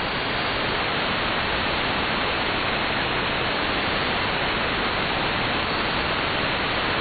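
Steady shortwave static and hiss from an AM receiver tuned to 5835 kHz, with no programme audible: the pirate station's signal has dropped to the noise floor.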